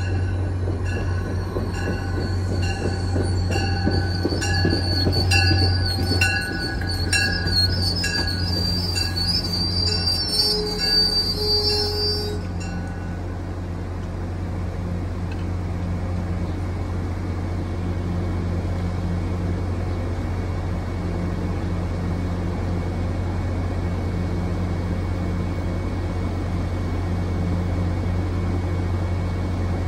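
Diesel-hauled MBTA commuter rail train pulling in and braking to a stop, its wheels and brakes squealing high with a regular clicking about twice a second; the squeal stops about twelve seconds in. The train then stands with a steady low hum.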